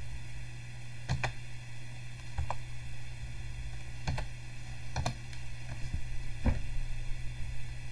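Sparse keystrokes on a computer keyboard, about six separate clicks, as a search word is typed, over a steady low hum.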